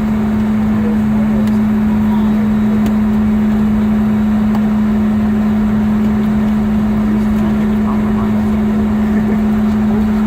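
Steady cabin drone of a Boeing 717 on the ground: a loud, constant hum over even rushing noise from the jet's engines and air system, with no change in pitch.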